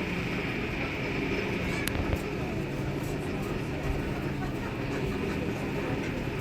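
Blacksmith's forge with its blower running, a steady rushing noise over a low hum, with a couple of faint clicks.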